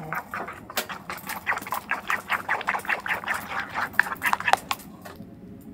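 Wooden spoon stirring a thick, creamy yogurt-and-mayonnaise sauce in a small wooden bowl: quick repeated strokes, about four or five a second, which die away about five seconds in.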